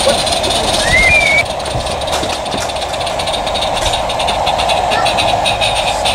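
Accucraft Countess live-steam garden-railway locomotive running with its train: a steady hiss with fast, faint exhaust beats. A brief rising chirp comes about a second in.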